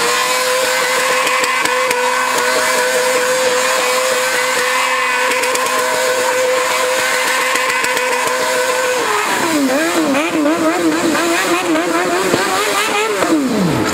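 Stunt motorcycle engine held at high, steady revs while its rear tyre spins in a smoky burnout. About nine seconds in the revs drop and start rising and falling in quick throttle blips, and just before the end they fall away to nothing.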